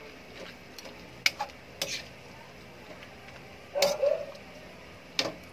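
A cooking utensil stirring noodles in a large aluminium wok, with a few sharp clinks against the pan. A short vocal sound comes about four seconds in.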